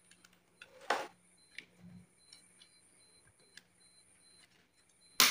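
Plastic wiring-harness connectors being handled and pushed into the sockets on the back of an Android car head unit: a few light clicks, the sharpest about a second in, then a louder knock at the very end.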